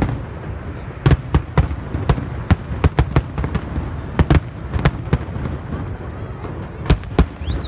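Fireworks display heard from a distance: aerial shells bursting in quick, irregular succession, sharp bangs over a low rumble.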